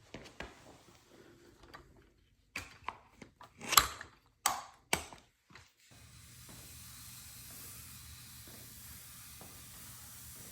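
A walker's legs knocking and clacking on a hard floor in a few irregular hits, the loudest a short scrape about four seconds in, followed by two sharp clicks. From about six seconds in a steady hiss takes over.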